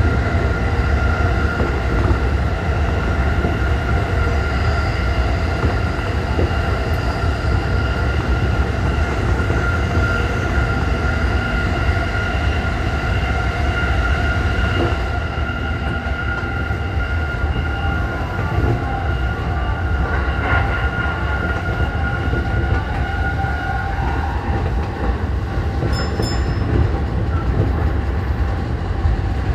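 Keihin-Tohoku Line electric commuter train running at speed, heard from the driver's cab: a steady rumble of wheels on rail under a steady whine. The sound shifts about halfway through as the train leaves a tunnel.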